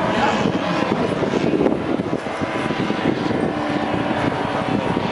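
Several radio-controlled scale models of the Fokker Dr.I triplane flying overhead, their propeller engines running together so that several engine notes are heard at once.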